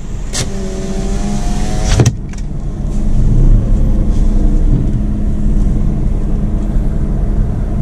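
Car creeping along at low speed, heard from inside the cabin: a steady low engine and road rumble. Early on an electric window motor whines for about a second and a half and stops with a clunk, after which the rumble grows a little louder through the open window.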